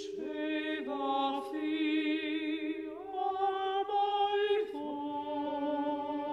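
Contemporary vocal ensemble singing long, overlapping held notes with vibrato, one voice sliding up into its note just after the start; the voices move to new pitches about three seconds in and again near five seconds.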